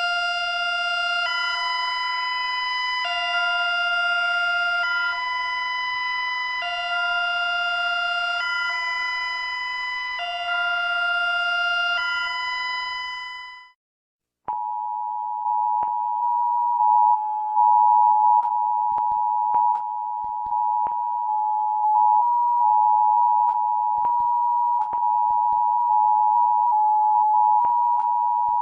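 An electronic alert tone switches back and forth between two pitches about every two seconds, then fades out about halfway through. After a brief silence, a steady two-tone Emergency Alert System attention signal sounds, broken by scattered clicks.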